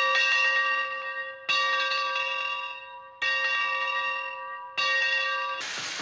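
A bell struck four times, about a second and a half apart, each stroke ringing at the same pitch and fading away. A loud hiss starts near the end.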